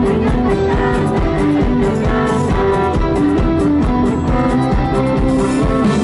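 Live rock band playing loudly through a PA, with electric guitar and drums over a steady beat.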